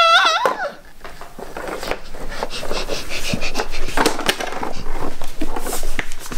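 A child's loud, held, high-pitched wolf cry breaks off just after the start. It is followed by repeated hard breaths, a child huffing and puffing to blow down a toy house.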